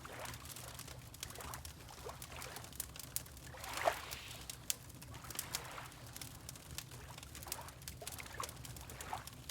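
Wood fire crackling with scattered sharp pops, over water lapping and sloshing in repeated swells, the biggest slosh about four seconds in. A steady low hum runs underneath.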